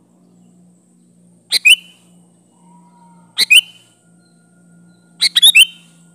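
Sooty-headed bulbul (kutilang) calling: three short, loud bursts of two to four quick notes, about two seconds apart, the last burst the longest.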